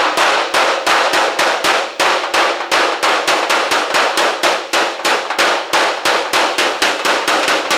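Body hammer tapping dents out of a sheet-metal car hood in a quick, even run of light strikes, about five a second, each with a short metallic clang.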